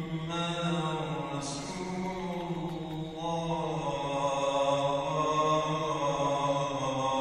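A man's voice chanting a religious recitation in long held notes that glide slowly up and down, amplified over the mosque's loudspeakers.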